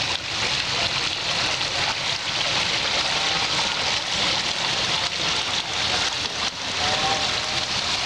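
Water from a handmade model waterfall falling in a sheet into a basin: a steady splashing rush of water with no breaks.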